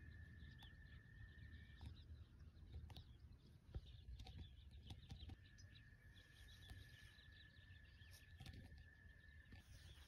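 Near silence: faint outdoor ambience, with a low rumble and scattered faint bird chirps.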